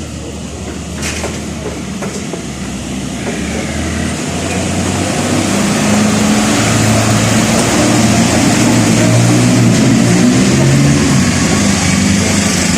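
A motor engine running steadily, growing louder about five seconds in and then holding.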